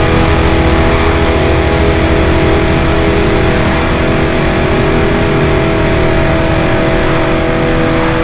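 Rock music with electric guitar mixed with a concrete mixer truck's engine running steadily.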